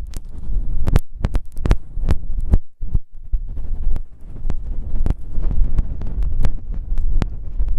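Close-up ASMR ear-massage sounds: something rubbing against a microphone, a heavy low rumble with many irregular crackles and clicks, briefly dropping away under 3 seconds in.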